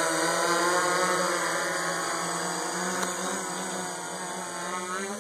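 Hexacopter's six electric motors and propellers buzzing in flight, a steady multi-pitched hum that wavers slightly. The pitch rises a little and the sound grows fainter toward the end.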